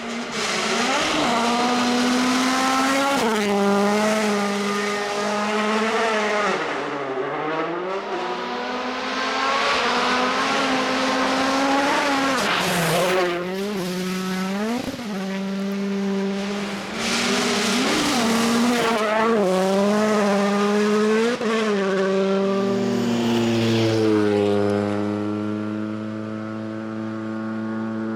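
Hyundai i20 Coupe WRC rally car's 1.6-litre turbocharged four-cylinder engine at speed on a gravel stage, its revs climbing and dropping over and over with gearshifts and lifts. There are two short bursts of rushing gravel and tyre noise about halfway through, and the engine holds a steadier note near the end.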